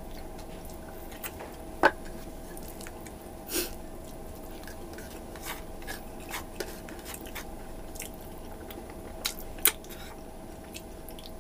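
Close-up eating sounds: a person chewing balbakwa, bony beef stew with chewy tendon, eaten by hand from a plate. Scattered sharp mouth smacks and clicks, the sharpest a little under two seconds in and two close together near the end, over a faint steady hum.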